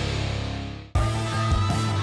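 Rock music with guitar: a held chord fades away, then about a second in the music cuts back in abruptly with a steady bass line.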